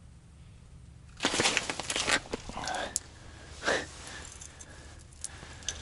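Rustling of winter clothing with clicks and knocks of ice-fishing rods being handled on the ice, as a second rod is snatched up during a bite on two lines. It starts about a second in as a busy burst, with another short flurry in the middle.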